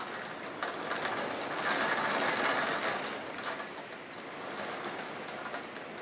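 Heavy rain pouring steadily, swelling louder for a couple of seconds near the middle and then easing back.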